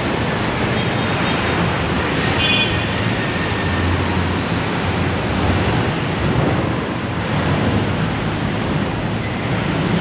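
Steady road traffic noise from trucks and cars passing close by, with wind buffeting the microphone.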